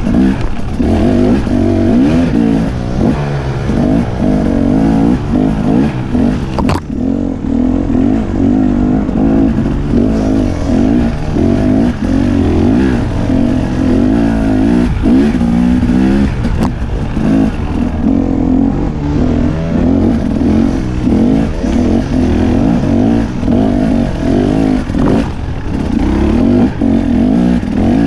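Dirt bike engine revving up and down continuously under load while climbing a steep, rocky dirt hill, with a few sharp knocks as the bike hits rocks.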